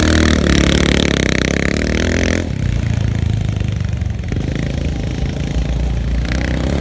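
Quad's Predator 500 engine revving hard as the machine spins donuts in dry grass. About two and a half seconds in, the sound switches abruptly to a duller, more distant engine drone, with a brief brighter rev near the end.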